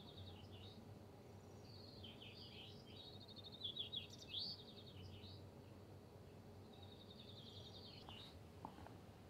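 Caged chaffinch singing: several rapid trilled song phrases in succession, the loudest about four seconds in, over a faint steady low hum.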